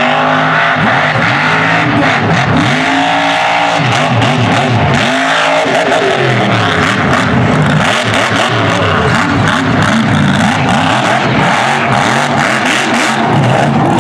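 King Sling mega truck's engine revving hard, its pitch rising and falling again and again as the throttle is worked.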